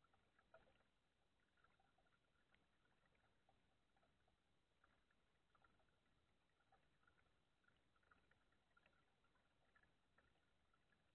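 Near silence, with only faint scattered small ticks.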